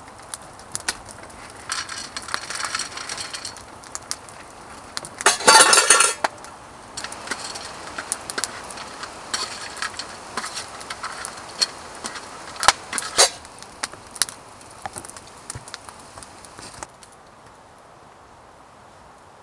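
Dry dog kibble poured from a plastic bag onto a steel camp plate, a loud brief rattle about five seconds in, with plastic bag rustling before it. Then a metal spoon stirs the kibble through leftover chili on the plate, scraping and clinking on the steel.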